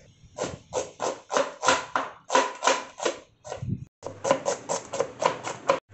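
Kitchen knife chopping onions on a plastic cutting board: a steady run of sharp knocks, about four or five a second, that pauses briefly about two-thirds of the way through and resumes faster, about seven a second.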